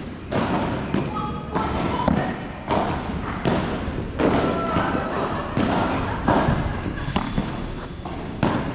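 Padel rally: the ball is struck back and forth with solid padel rackets and bounces on the court, a string of sharp knocks about two a second.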